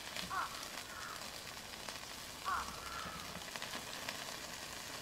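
Duck meat sizzling in its own fat on a hot pan, a steady crackling hiss. Two short high calls come over it, about half a second in and again about two and a half seconds in.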